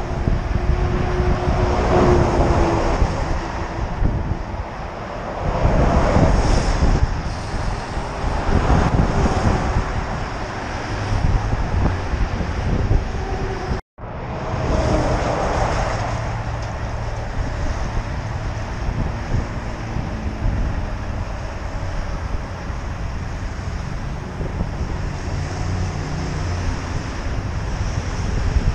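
Wind rushing over a bicycle-mounted camera's microphone while riding, with road traffic passing on the highway alongside; several vehicles swell past in the first half. The sound cuts out for an instant about halfway through.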